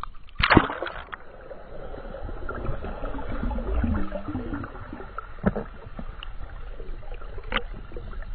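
A black Labrador dives off a boat's bow into the sea with a loud splash about half a second in. Then comes muffled underwater gurgling and bubbling with a low rumble while the dog swims down to the seabed, with a few faint knocks.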